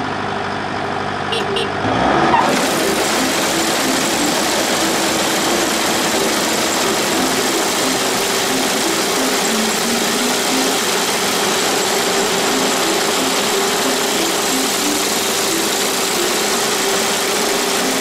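Kubota combine harvester's engine running, then about two seconds in the threshing and straw-cutter drive is engaged and a loud steady rushing clatter of the machinery takes over. The drive belt to the cutter has just been replaced after it smoked from a clog.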